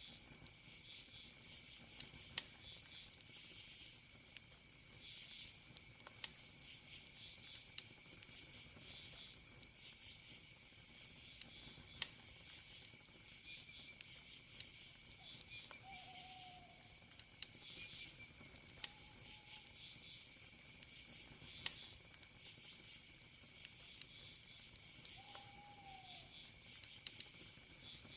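Campfire crackling, with scattered sharp pops from the burning wood, over a steady high cricket trill and pulsing insect chirps. Three short falling whistle-like calls come through in the second half.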